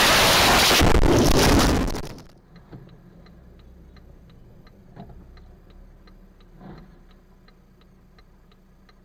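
Loud rushing, crashing noise for about the first two seconds, cut off suddenly. Then a car's indicator flasher relay ticks steadily, about three clicks a second, with a couple of soft thumps.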